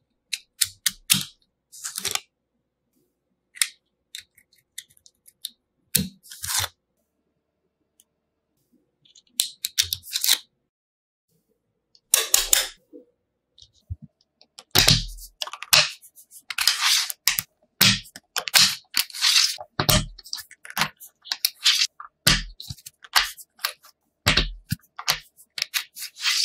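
Tiny magnet balls clicking and snapping together as rows are sliced off and pried apart with a card, with short rattling scrapes of the card against the balls. A series of sharp clicks and brief clattering bursts with silent gaps between, busier in the second half.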